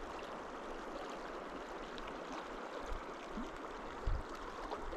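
River water running over rocky riffles, a steady rushing hiss. A brief low thump about four seconds in.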